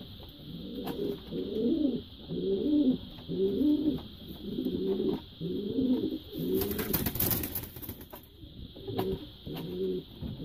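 American Show Racer pigeon cooing: a run of repeated low, wavering coos that pauses briefly about eight seconds in, then starts again. A short noisy rustle comes about seven seconds in.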